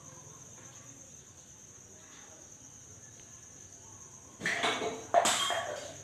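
Faint steady high-pitched hum, then two loud scraping rustles near the end, each about half a second long: handling noise from the stone and phone being moved close to the microphone.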